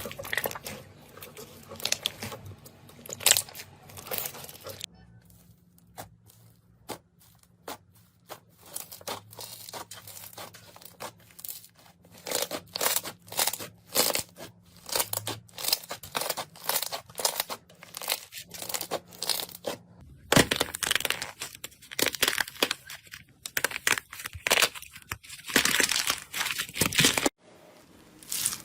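Slime being squeezed and pressed by hand, giving rapid runs of crackling and popping clicks. It comes in bursts, with sudden changes in sound about five seconds in, around two-thirds of the way through and near the end.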